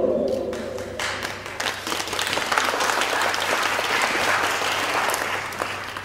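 Audience applauding, starting about a second in and dying away near the end, while a sustained chord of stage music fades out at the start.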